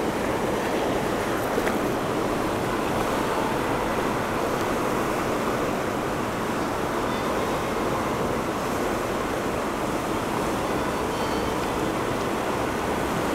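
Fast river water rushing over rapids and boulders, a steady, unbroken noise.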